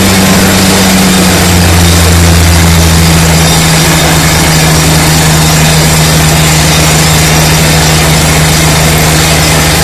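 DTH drilling rig's engine running loud and steady, its pitch dropping slightly about a second in, with a loud rushing noise over it.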